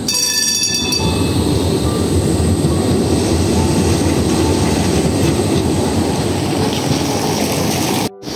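Škoda 15T tram ringing its bell for about a second, then pulling away with a steady low rumble of wheels on the rails. The sound drops out abruptly near the end.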